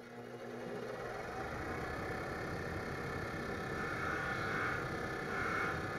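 Bench grinder running with its wire wheel spinning, a steady motor sound, while a small steel bolt held in pliers is pressed against the wire brush to clean it. The brushing grows brighter from about four seconds in.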